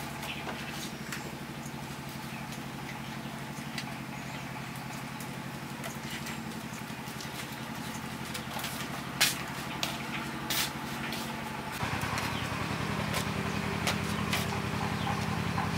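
An engine idling steadily. About twelve seconds in it picks up, running louder with a slightly higher note. A couple of sharp knocks come about nine and ten seconds in.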